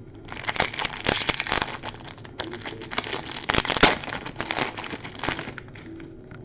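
Trading-card pack wrapper crinkling and tearing as it is opened and handled, in a dense run of crackles that fades out near the end.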